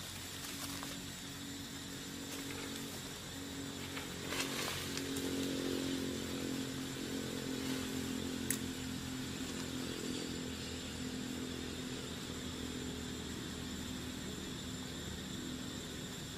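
A small engine running at a steady pitch. It grows louder about five seconds in and eases off again over the following seconds.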